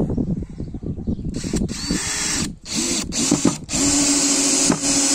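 DeWalt cordless drill-driver driving a 3-inch coarse-thread screw into hard wood with no pilot hole. The motor starts and stops in a few short trigger pulls, then runs steadily at one pitch from about the middle on as the screw goes in.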